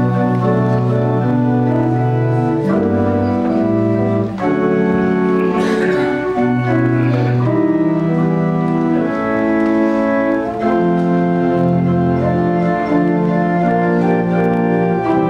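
Organ playing slow, sustained chords that change every second or so: the introduction to a congregational hymn.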